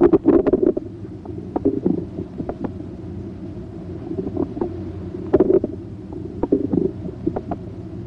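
Bowel sounds heard through a stethoscope's diaphragm pressed on the abdomen: irregular gurgles and clicks in several clusters over a low steady hum.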